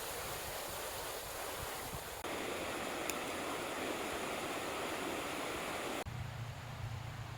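Mountain stream rushing, a steady wash of water noise. It changes abruptly about two seconds in, growing louder, and again about six seconds in, turning quieter with a low hum underneath.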